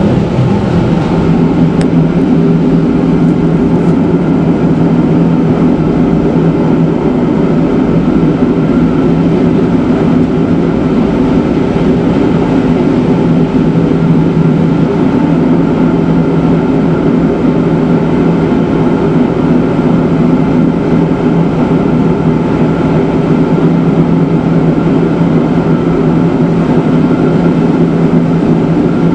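Electric rack-and-adhesion train of the Matterhorn Gotthard Bahn running steadily on cog-railway track, heard from the front of the train: a loud, even rumble of wheels and running gear with a constant low hum.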